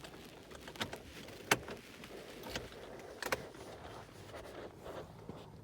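Four sharp clicks and clunks over a low steady hum, the loudest about one and a half seconds in: a VW Golf's ignition key being turned and the instrument-cluster reset button pressed during a service-indicator reset.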